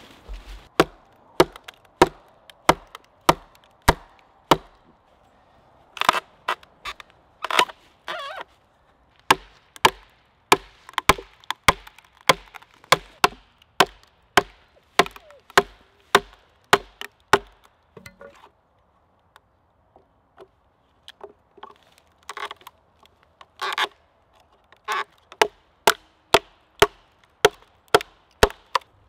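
Hatchet repeatedly striking a cedar log, sharp woody blows at about two a second. A few harder, ringing blows fall in, and there is a short lull about two-thirds of the way through.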